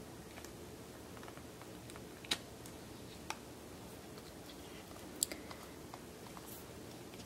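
Hands handling a rubber-booted waterproof phone case as a dummy phone is worked out of its soft rubber boot: quiet rubbing with a few sharp clicks, about two, three and five seconds in.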